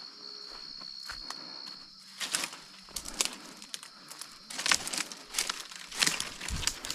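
Footsteps crunching through dry brush and leaf litter while firewood is gathered, in irregular bursts that grow denser after about two seconds. A steady high whine sounds under the first two seconds.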